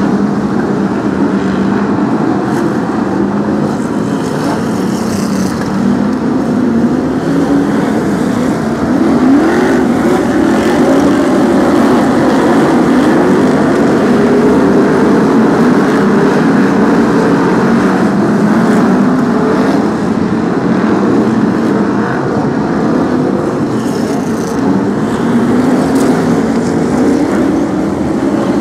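A pack of BriSCA F1 stock cars' V8 engines running together on the oval, loud and continuous, the engine notes rising and falling as the cars accelerate and lift around the bends.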